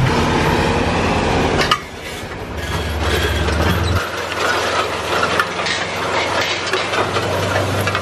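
A John Deere 2730 combination ripper rattling and clanking as its discs and shanks tear through corn stalks behind a John Deere four-wheel-drive tractor. The tractor's diesel engine hums underneath, and the sound shifts abruptly about two and four seconds in.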